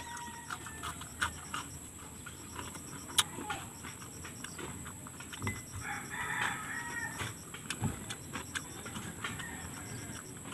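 Chickens clucking and a rooster crowing, with a longer call about six seconds in. Scattered small clicks and crunches of eating crispy fried chili peppers come in between.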